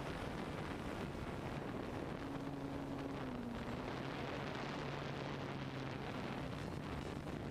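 DJI F550 hexcopter's six electric motors and propellers humming steadily, picked up by the GoPro on board, with wind rushing over the microphone. The motor hum dips slightly in pitch about three seconds in.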